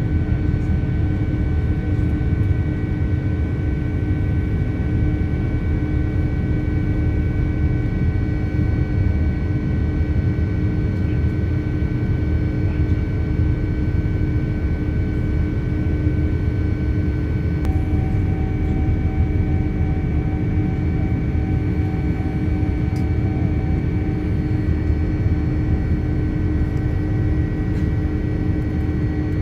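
Steady cabin noise of a Boeing 787 Dreamliner climbing after take-off: a dense low engine and airflow rumble with a few constant whining tones over it. A further faint tone joins a little past halfway.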